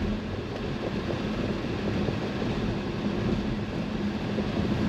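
Road, tyre and wind noise heard inside the cabin of a Volvo EX30 electric car driving at about 60 km/h, with a faint steady hum underneath.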